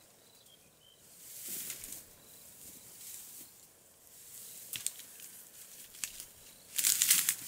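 Rustling and swishing of dry grass, reeds and branches as a person pushes through thick brush, coming in uneven surges. The loudest surge is near the end.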